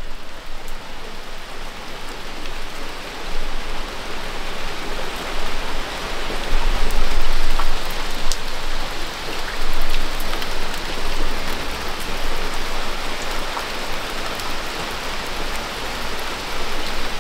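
Steady rain falling on wet patio paving and garden: a continuous, even hiss.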